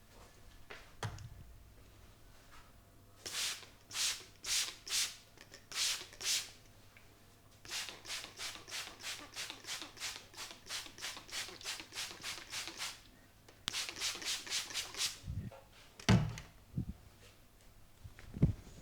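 Hands rubbing skin and hair in rhythmic massage strokes: a handful of slower strokes, then a long run of quick rubbing at about four strokes a second, then another quick run. A few dull thumps follow near the end, one of them loud.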